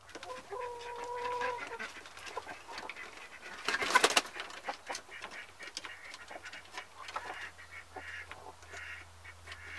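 Domestic hens in a coop calling and clucking: one held, even call about half a second in, and a run of short clucks near the end. A brief loud scuffle about four seconds in.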